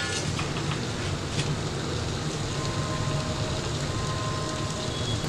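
Steady hiss of a covered biryani pot heating on a gas stove flame, the stage before steam builds and the flame is lowered for dum cooking.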